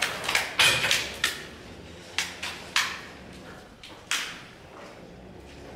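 Irregular sharp knocks and clanks of a heifer's hooves on the concrete barn floor and against the metal cubicle dividers as she stands up and steps out of the stall. The knocks are densest in the first second and a half, then come singly about two, three and four seconds in.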